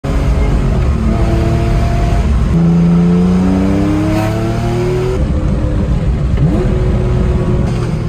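Air-cooled 3.0-litre flat-six of a 1978 Porsche 911 SC, fitted with 964 cams, headers and a Supertrapp exhaust, heard from inside the cabin while driving. The engine note climbs in pitch under acceleration about three to five seconds in, then falls away as the throttle comes off, with a short rise in revs shortly after.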